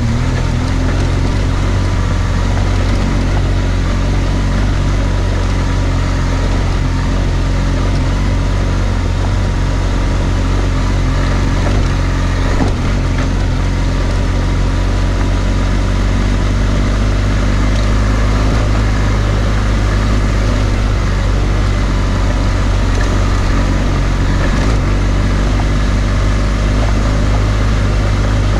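BMW R1200GS Adventure's boxer-twin engine running steadily under way, with tyre and wind noise from riding a gravel track.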